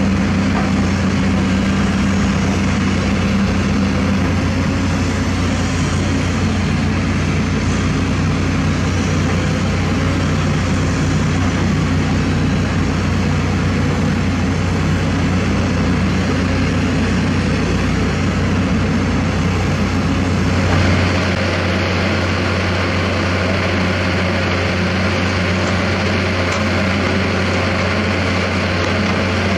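Hydraulic excavators' diesel engines running steadily under working load, a continuous low drone. About two-thirds of the way through, the sound changes abruptly to a single excavator working close by, with less deep rumble and more high-pitched engine noise.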